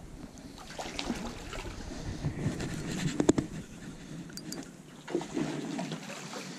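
Water splashing as a hooked pike is played in at the bank, with a cluster of sharp knocks about three seconds in.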